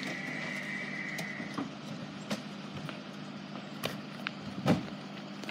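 Toyota car idling with a steady hum while the driver's door opens, with a few sharp clicks and a heavier thump near the end as the driver climbs out.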